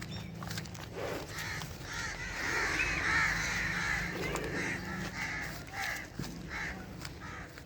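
Crows cawing: a longer run of harsh calls, then a string of short caws about twice a second near the end.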